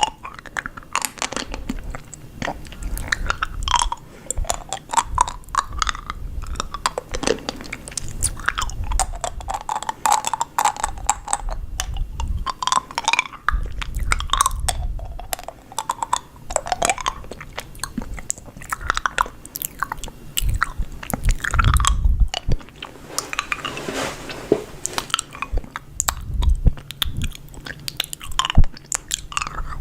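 A person chewing food, with many sharp, irregular clicks and crunches.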